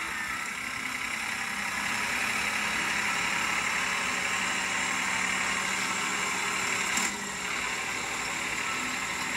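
Farm tractor engine running steadily as it pulls a trailer of hayride passengers, with a brief sharp sound about seven seconds in.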